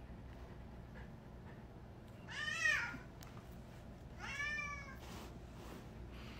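Domestic cat meowing twice, two drawn-out calls that each rise and then fall in pitch, the second quieter than the first.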